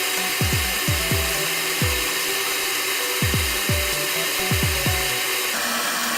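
Background electronic music with deep, pitch-dropping kick drums and held notes above them, over a steady hiss.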